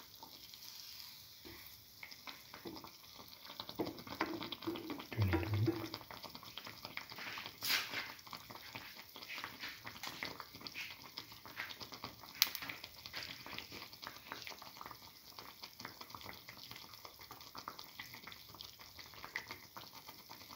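A batter fritter shallow-frying in hot oil in a pan, with a steady crackling sizzle. Two sharp clicks come through, about eight and about twelve seconds in.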